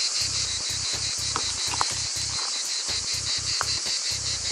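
Steady high-pitched insect chorus, finely pulsing, with a few short chirps. A low throb of about four beats a second runs underneath.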